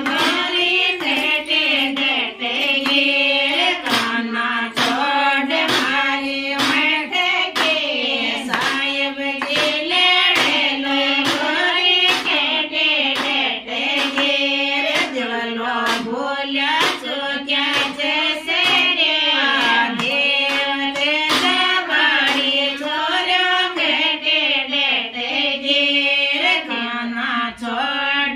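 Women singing a Rajasthani folk wedding song (geet) together, a steady wavering melody invoking the gods. Regular hand claps keep time through it.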